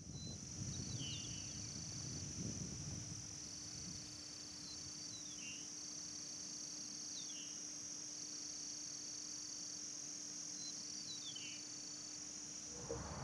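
Open marsh ambience: a steady high insect drone, with a bird call repeated about every two seconds, each a held high note that ends in a short falling slur, over a faint low rumble of wind.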